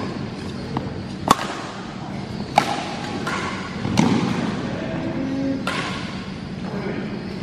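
Sharp smacks of badminton rackets striking a shuttlecock, about five spaced a second or more apart, each echoing in a large sports hall.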